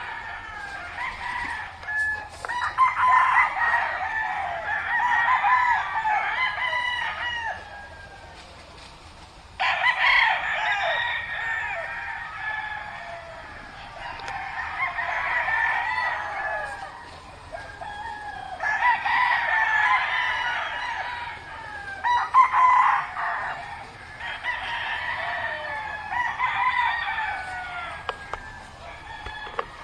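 Several roosters crowing, their long calls overlapping and following one another every few seconds.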